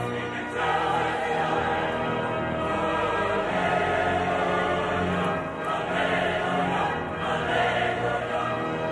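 A choir singing slow music with long held chords.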